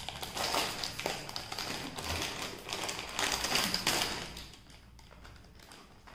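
Plastic chips packet crinkling and rustling as it is torn open, with many quick crackles; it goes much quieter about four seconds in.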